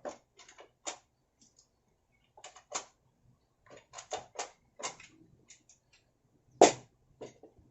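Irregular sharp clicks and knocks of hand tools and small metal parts being handled during work on a small four-stroke engine, with one louder knock near the end.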